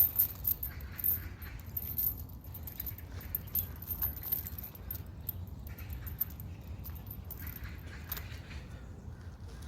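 Metal clinking and jangling from a 5 kg hanging pull-up weight and its fittings, in many small scattered clicks with a sharper knock at the start, over a low steady rumble.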